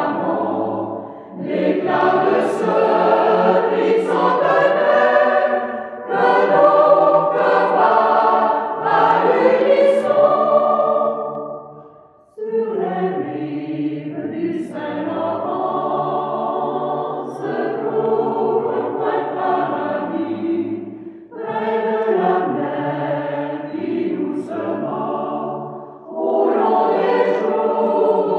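Choir singing in long phrases with short breaks between them. About twelve seconds in it fades almost to nothing, then comes back in abruptly.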